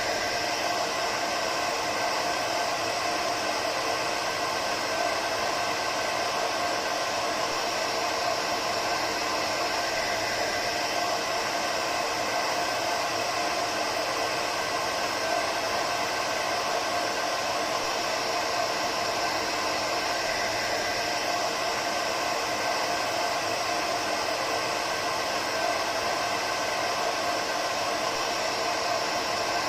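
Hair dryer running continuously: an even rushing blow of air with a faint steady whine from its motor, unchanging throughout.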